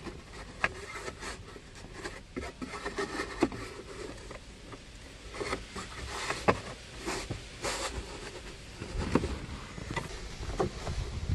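Plastic A-pillar trim of a BMW F11 scraping and clicking as it is pushed and worked into place against the door seal, its clips being lined up with their holes. The handling goes on irregularly, with a few sharper knocks.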